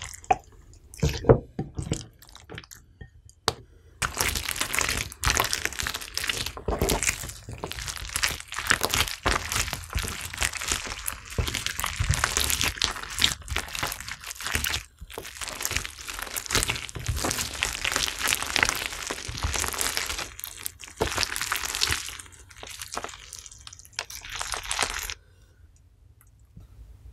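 Hands kneading and squeezing slime mixed with pomegranate seeds: a few scattered clicks at first, then a dense run of small crackles and pops from about four seconds in, with short pauses, stopping shortly before the end.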